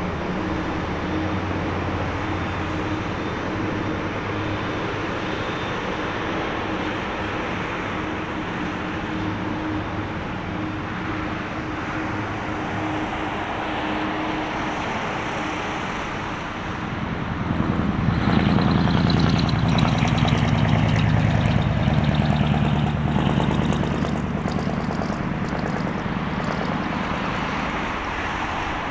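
Airbus A330-300 jet engines (General Electric CF6-80E1 turbofans) running at low taxi thrust as the airliner rolls past, a steady rumble with a held low hum. About two-thirds of the way through it grows clearly louder and deeper for several seconds, then settles back.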